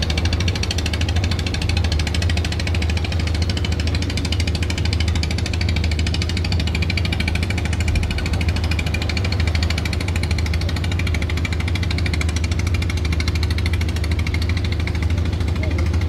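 Boat diesel engines running close by: a steady low rumble with a rapid knocking pulse and a hiss of churned water, unchanging throughout.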